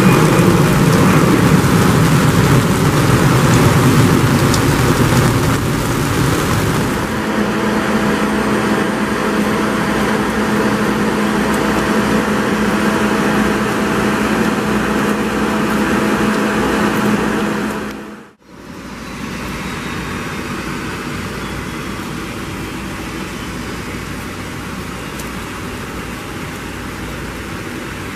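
Jet airliner engines running loud as the aircraft climbs away after takeoff, easing after about seven seconds into a steadier jet engine sound with a faint steady whine from a taxiing Azul Embraer E195. The sound cuts out briefly about two-thirds through, then a steady background hiss.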